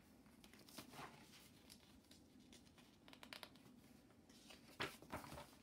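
Pages of a large picture book being turned: quiet paper rustling and soft handling sounds, with two louder page swishes near the end.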